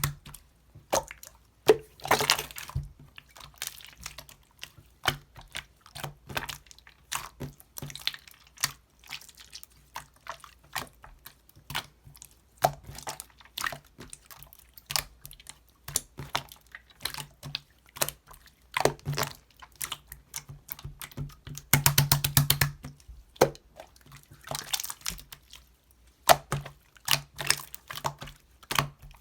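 Clear slime being squished and poked by hand, making wet clicks and small pops, with a fast run of clicks about three-quarters of the way through.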